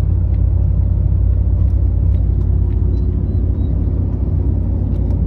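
Pickup truck driving at road speed, heard from inside the cab: a steady, loud low rumble of tyres and engine, with a few faint ticks.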